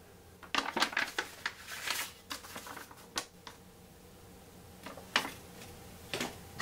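Paper rustling and crinkling as folded printed instruction sheets and leaflets are handled and put away, in a busy stretch of crackles during the first few seconds and a few more sharp crackles near the end.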